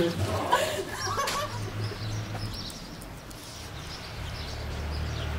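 People laughing for the first second and a half or so, then a quieter stretch with a low steady hum.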